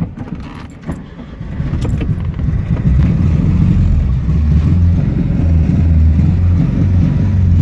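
Rear-mounted air-cooled V4 engine of a ZAZ-965 Zaporozhets heard from inside the cabin. It picks up from about two seconds in and then runs loud and steady under load over the bumpy road. There are a few light rattles in the first second or so.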